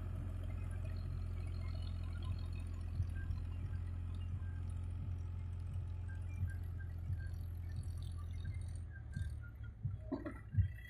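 Powertrac 439 tractor's diesel engine running steadily as it pulls a loaded trolley: a low drone that drops away about nine seconds in. A few thumps follow near the end.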